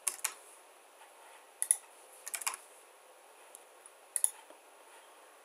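A handful of computer keyboard key presses and mouse clicks, short and sharp, spread out with quiet gaps between them.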